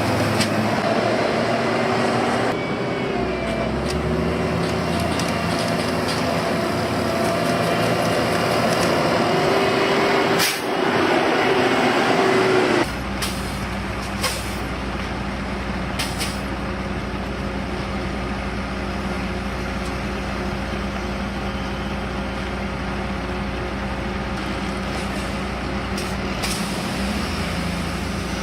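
Heavy diesel road-construction machinery engines running steadily. The engine sound changes abruptly about two and a half and thirteen seconds in, with a few brief sharp noises.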